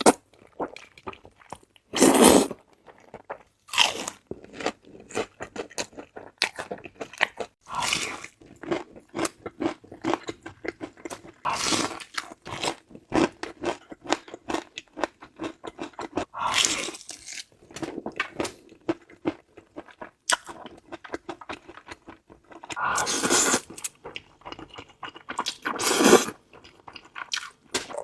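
Close-miked eating: crunchy bites and chewing of crispy fried chicken coated in sticky sauce, with a loud crunchy bite every few seconds and wet chewing crackles between.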